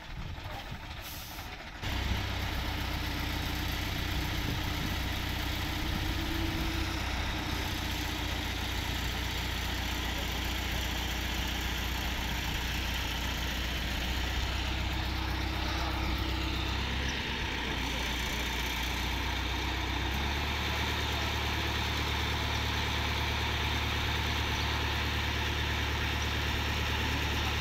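Diesel engine of an Indo Power pick-and-carry crane running steadily while the crane holds a suspended load. It gets suddenly louder about two seconds in, and its low hum shifts pitch about two-thirds of the way through.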